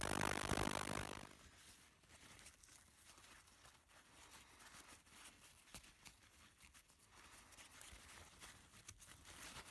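An ultrasonic cleaner runs with a steady buzz that cuts off about a second in. Then a paper towel rustles and crinkles as it rubs a rebuildable atomizer deck dry, with small scattered ticks.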